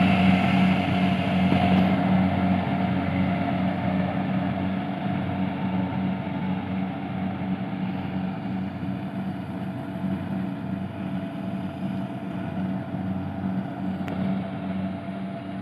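A small engine running steadily with a constant low drone, growing gradually quieter.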